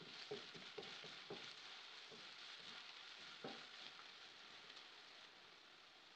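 Green chillies and garlic sizzling faintly in a non-stick wok on high heat, stirred with a wooden spatula that knocks and scrapes against the pan several times in the first second and a half and once more about three and a half seconds in. The sizzle eases toward the end.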